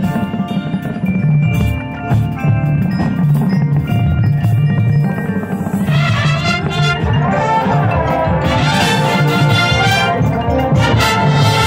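A drum and bugle corps plays live outdoors. Mallet keyboards from the front ensemble ring out over a steady low beat. About halfway through, the full brass hornline comes in loud and takes over.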